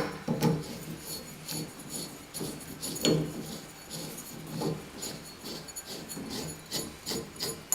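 Small metal shower-valve trim parts clinking and scraping together as a metal sleeve is fitted by hand over the valve stem: irregular light clicks and rubbing.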